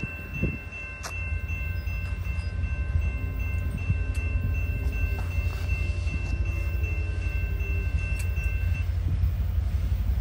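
Approaching freight train hauled by a diesel locomotive: a low rumble that grows steadily louder. Over it run steady high-pitched ringing tones that stop about nine seconds in.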